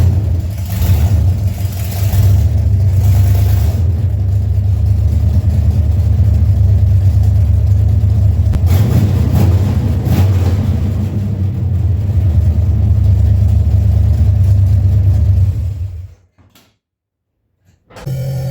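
Ford 351 Windsor V8 with a stage 1 roller cam running under load on the road, a steady heavy low rumble with some swells in revs during the first few seconds. The sound cuts off abruptly about sixteen seconds in.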